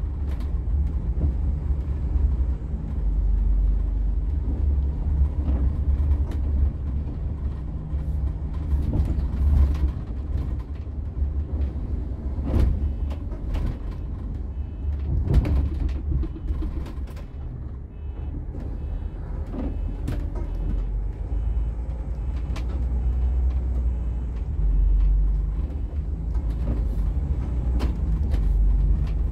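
Inside a moving Setra S 416 UL Business coach: a low, steady engine drone with road noise, and scattered short knocks and rattles throughout.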